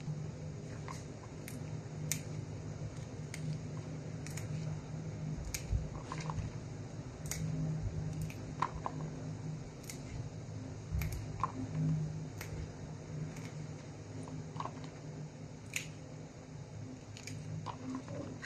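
Fresh snow peas being trimmed by hand: crisp snaps, about one a second and unevenly spaced, as the stem ends are broken off and the strings pulled. A steady low hum runs underneath.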